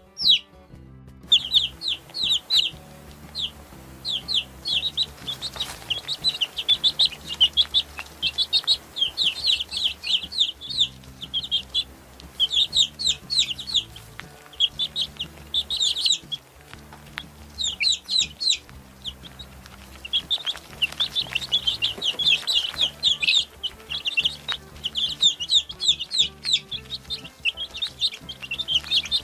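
Baby chicks peeping: many short, high calls in quick runs, broken by brief pauses, over soft background music with low notes.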